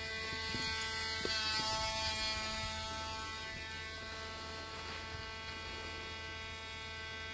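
Dremel pet nail grinder running steadily with an even motor whine.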